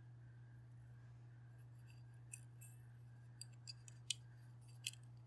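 Faint, irregular small clicks and ticks as the small parts of a disassembled mechanical kitchen timer are handled, about half a dozen in the second half, over a low steady hum.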